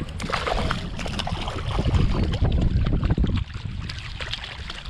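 A hooked trout thrashing and splashing at the water's surface as it is reeled in, with wind rumbling on the microphone, heaviest in the middle.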